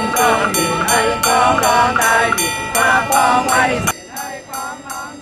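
Music with singing over a steady beat of about three strokes a second; the sound drops abruptly in loudness about four seconds in.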